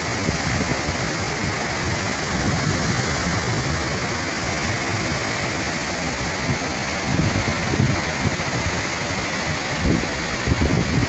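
Rushing floodwater of a hill torrent: a steady rush with an uneven low rumble underneath.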